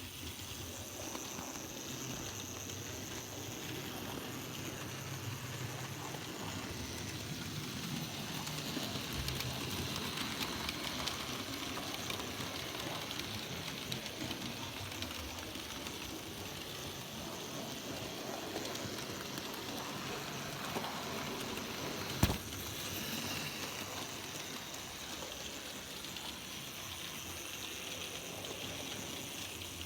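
N gauge model train running on track, giving a steady running noise, with one sharp click about twenty-two seconds in.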